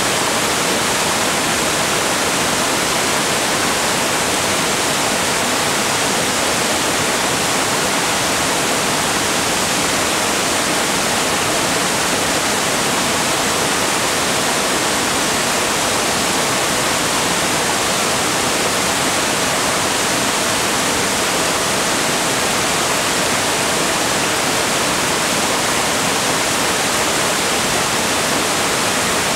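Barron Falls in full flood: a torrent of floodwater pouring over the rocky falls, heard as a loud, steady, hissing rush.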